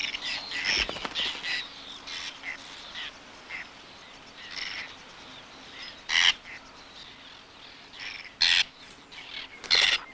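Whiskered terns calling at the nest, chicks begging for food: a run of short, quick chirps in the first few seconds, then scattered calls, with three loud short calls about six, eight and a half and ten seconds in.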